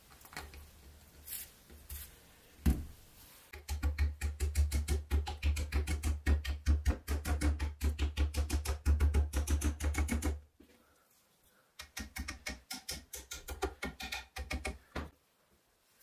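A small hammer tapping a wooden knife handle scale down onto the steel pins in the tang: one sharp knock, then a fast, even run of light taps for about seven seconds. After a short pause, a few more runs of taps follow.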